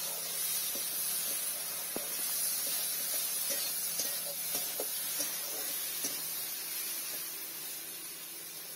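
Potatoes, pirrah and snails frying in mustard oil in a steel kadai over a wood fire: a steady sizzling hiss, with scattered light clicks as a spatula stirs them.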